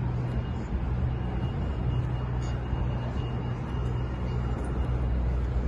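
Street traffic noise with a steady low engine hum, as from a vehicle idling.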